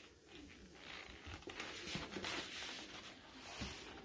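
Faint rustling and a few soft knocks from a click-clack sofa bed's back and mechanism being handled.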